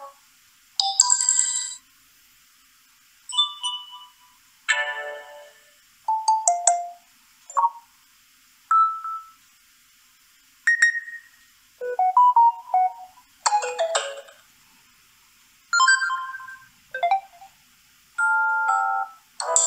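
A run of short preset notification sounds from a Samsung Galaxy A41 phone's speaker, played one after another. There are more than a dozen brief melodic chimes and jingles, each lasting about a second or less, with short silences between them.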